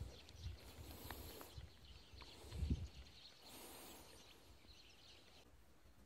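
Faint outdoor ambience with a few low thuds, the loudest a little under three seconds in, and faint bird chirps that drop away near the end.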